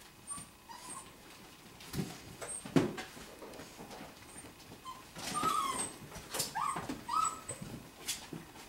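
Five-week-old golden retriever puppies whimpering and squealing in short, high whines that slide up and down in pitch, clustered in the second half. A few sharp knocks come in between, the loudest about three seconds in.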